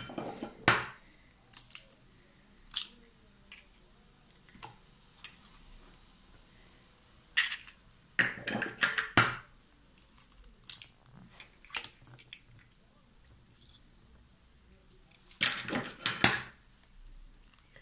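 Eggs being cracked and separated: scattered sharp cracks and crunches of eggshells breaking, with two longer bursts of crackling about halfway through and near the end, and quiet between.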